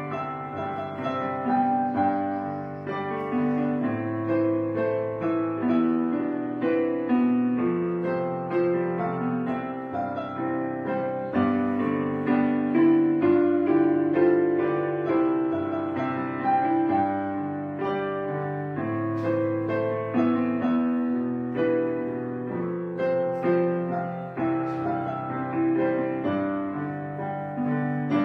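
Background piano music: a gentle, slow melody with notes struck and held over chords.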